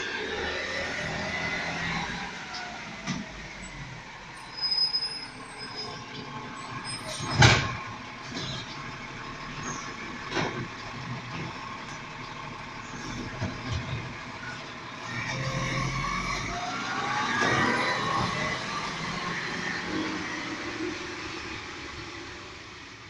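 Garbage truck working curbside carts in the rain: its diesel engine runs steadily under a series of sharp knocks, the loudest about seven and a half seconds in. From about 15 s in, the engine note rises as the truck pulls away.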